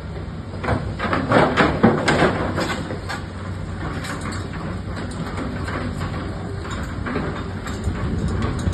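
A digger's engine running steadily, with a run of metal clanks and knocks about one to two seconds in.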